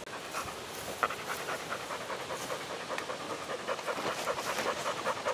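A retriever dog panting rapidly in quick, even breaths, close by and getting louder toward the end. The dog is excited, eager to retrieve the clays.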